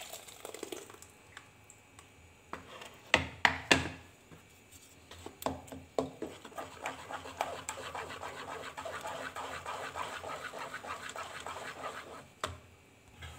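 A wooden spatula scraping and pressing thick tomato puree through a fine mesh strainer: a rapid, steady scratching that runs for several seconds in the second half. Before it, the puree is poured into the strainer at the start, and there are three sharp knocks a little after three seconds.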